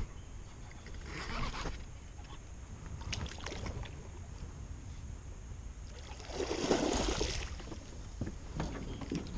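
Quiet handling sounds in a small aluminum fishing boat: a few light knocks and rustles as the rod and line are worked, and a louder rush of noise about two-thirds of the way in.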